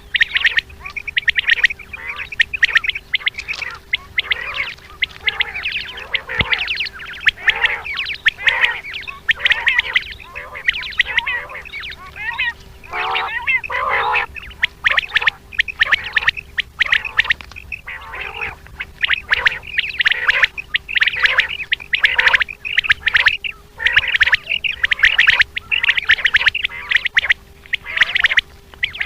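Common quail calling in a dense, nearly unbroken run of short, high, rapidly repeated calls, the kind of quail call played to lure quail in hunting. A steady low hum sits underneath.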